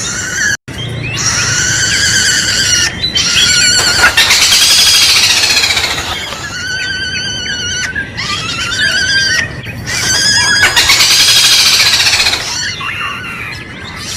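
Kadalan kembang (red-billed malkoha) calling. Wavering, trilling pitched notes alternate with two loud, harsh rising-and-falling phrases, about four seconds and ten seconds in.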